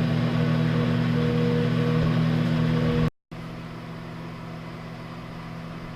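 Microwave oven running with a steady electrical hum. About three seconds in the sound cuts out for a moment and comes back as a quieter, steady hum.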